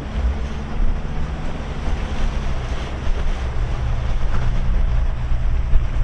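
Twin outboard engines of a towboat running under throttle while towing a yacht, a steady low hum that gets louder about a second in as the throttle is opened. Rushing water and wind are heard over it.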